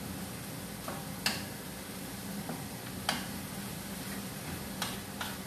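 Food sizzling in a frying pan as it is stirred with a spatula, with a few sharp clicks of the spatula against the pan. It is being cooked until its remaining water has evaporated.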